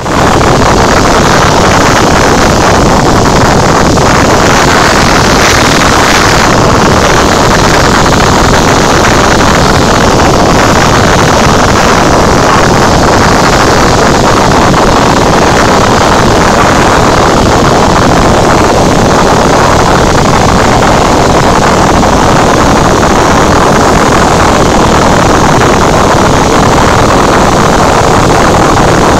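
Cessna 172's piston engine and propeller running at power in flight, heard inside the cabin as a loud, steady drone.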